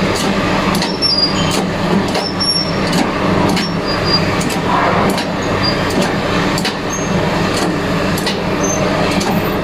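Hydraulic jack pumped by hand to press out a worn alternator bearing: irregular sharp clicks with short high squeaks, over a steady low machine hum.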